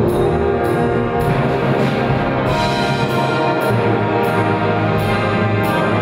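A full brass band of cornets, horns, trombones and tubas playing together in full chords, with new notes sounding together about one to two times a second.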